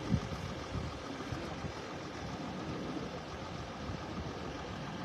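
Steady low background rumble, with a brief thump just after the start.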